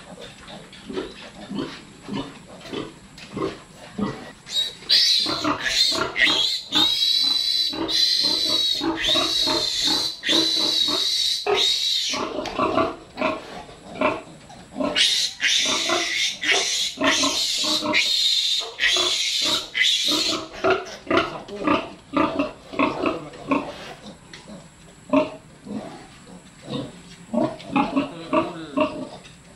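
Newborn piglets grunting, and a piglet squealing loudly in two long stretches, about five to twelve and fifteen to twenty seconds in, as it is held for an iron injection.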